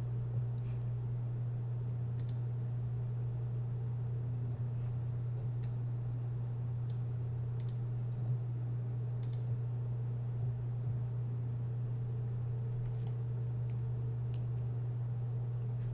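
Computer mouse clicking now and then, about nine sharp clicks spread unevenly over the stretch, over a steady low hum.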